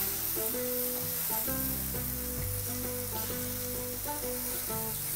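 Mashed roasted aubergine, onion and peppers sizzling in a hot nonstick frying pan as a spatula stirs and scrapes it, the bharta being fried down with its spices. Background music with held, stepping notes plays over the sizzle.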